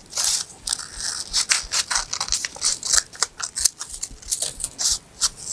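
Scissors snipping through printed paper in a quick run of short cuts, cutting out a small paper piece.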